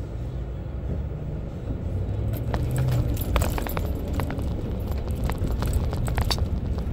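Steady low rumble of a car cabin on the move. From about two seconds in there is a run of irregular light clicks and crinkles as a plastic spit bottle is handled and raised to the mouth.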